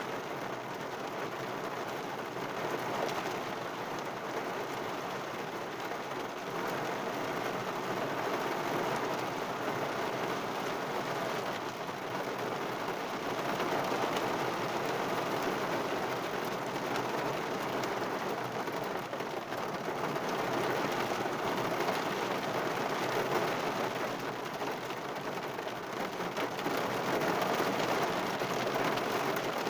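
Heavy rain pattering steadily on a car's roof and windows, heard from inside the car, with dense drop ticks and gentle swells in intensity.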